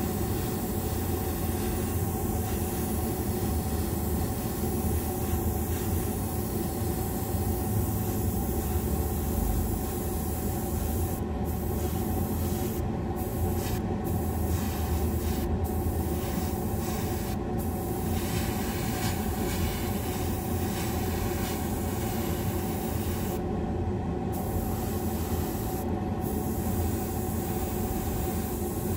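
Airbrush spraying paint with a steady hiss that cuts out briefly about seven times in the second half as the trigger is let off, over the steady hum of a motor, most likely the spray booth's exhaust fan.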